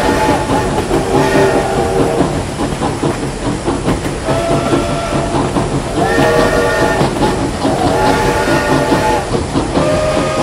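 Steam locomotive running, a steady rumble of chuffing and wheels on rails, with its whistle blowing several long blasts, each a chord of a few tones held about a second.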